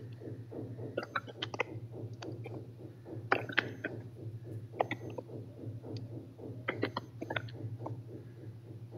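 Irregular clatter of keys typing, picked up over an open video-call microphone, over a steady low electrical hum.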